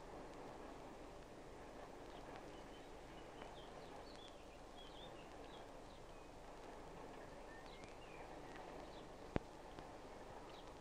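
Faint outdoor ambience with scattered distant bird chirps, and one sharp click about nine seconds in.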